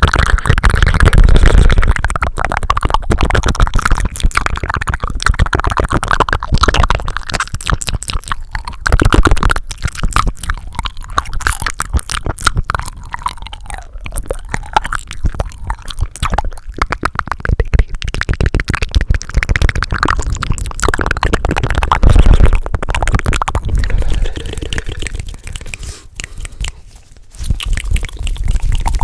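ASMR mouth and hand sounds made right at a sensitive microphone: a fast, dense, irregular run of wet clicks and smacks.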